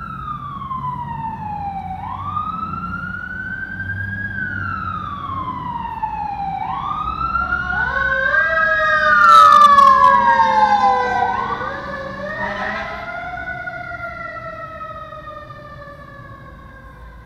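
Emergency vehicle sirens wailing. A single siren rises and falls slowly every couple of seconds. Then two or more overlapping sirens swell to their loudest about ten seconds in and fade away, as vehicles pass by on the road.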